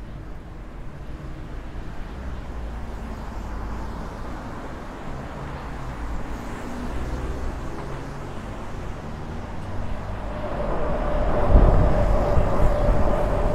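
City street traffic running along the road beside the pavement, a steady low rumble. About ten seconds in it grows louder as a vehicle draws close, with a steady hum.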